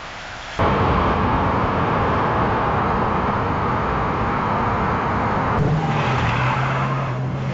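A car's sound starts abruptly about half a second in, with dense, steady road and engine noise. About five seconds later it switches suddenly to a steady low engine hum.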